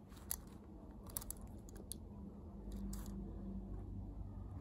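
Scattered light clicks and taps from a die-cast Majorette toy car being handled and turned over by hand.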